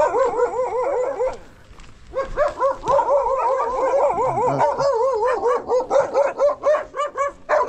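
A dog barking in a rapid, high-pitched run of yaps. It stops briefly about a second and a half in, starts again, and near the end breaks into separate sharp yaps about three a second.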